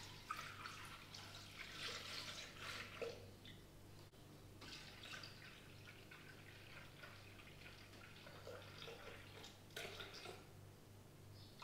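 Milk pouring from a plastic bottle into a stainless-steel mixing bowl, a faint steady splashing trickle, with a low steady hum underneath.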